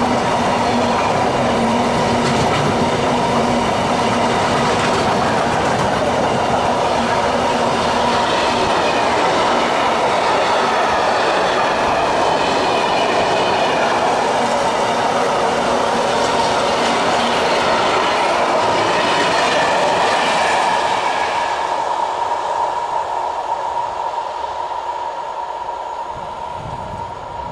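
Container flat wagons of a long electric-hauled freight train rolling past, with wheel and rail noise and a steady whining tone. From about three quarters of the way through, the sound fades away as the end of the train passes and recedes.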